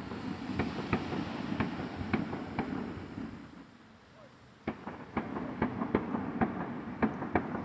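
Fireworks going off in a rapid, irregular string of sharp pops and crackles over a low rumble. There is a short lull about halfway through, then the crackling starts again.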